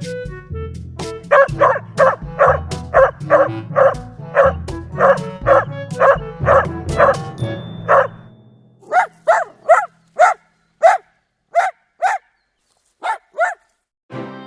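A dog barking repeatedly, two to three barks a second, over background music with a low pulsing beat. About eight seconds in the music fades out and single barks carry on alone, with a short pause near the end.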